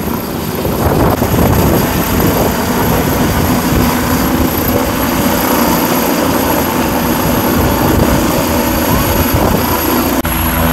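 Helicopter running close by: loud rotor and engine noise, with rotor downwash buffeting the microphone. About ten seconds in, the sound changes abruptly to a steadier engine hum.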